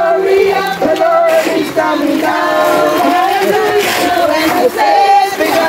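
A congregation singing a gospel hymn together, many men's and women's voices overlapping loudly.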